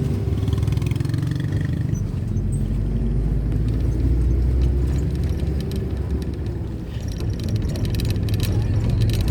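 Steady low rumble of a moving road vehicle's engine and tyres on the road, with a patter of small rattles in the last couple of seconds.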